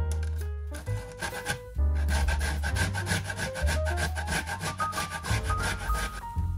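Boiled carrot rasping against the blades of a stainless-steel box grater, with fingers scraping the shreds off the grater, in quick repeated strokes. Background music with a stepping melody and a deep bass plays underneath.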